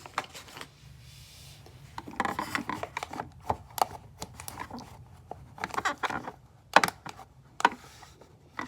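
Makeup items and a makeup bag being handled: a run of light plastic clicks and knocks with scratchy rustling, busiest in the first half, then a few sharp clicks near the end.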